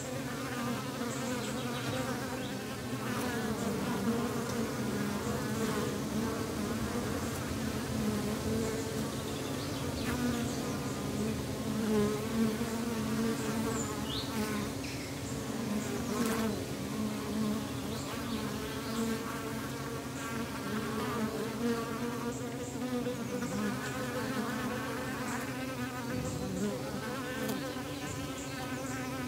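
Honeybees buzzing over an open hive: a dense, steady hum of many bees whose pitch wavers as they fly around the exposed honey frames.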